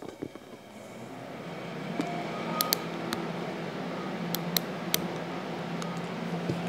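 A man blowing hard and steadily through Tygon tubing into a plastic RC fuel tank to pressurize it for a leak test: a rush of breath that builds over the first couple of seconds and then holds. Several sharp metal clicks come from the locking forceps on the tubing in the middle.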